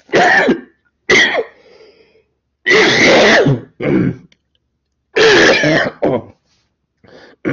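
A person coughing and clearing their throat, several loud separate bouts in quick succession.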